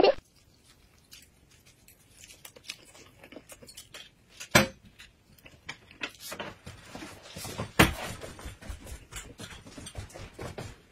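Eating and table noises: chewing and slurping of noodles, with small clicks of chopsticks against a metal bowl and two sharp knocks, one about halfway and one a few seconds later.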